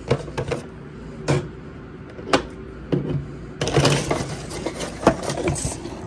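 Scattered knocks and clicks from a plastic smoke alarm being handled and turned over on a desk, with a short stretch of rustling a little past halfway.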